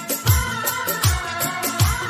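Jhankar remix of a South Asian film song: heavy bass drum beats that drop in pitch, about one every three-quarters of a second, under a sustained melody.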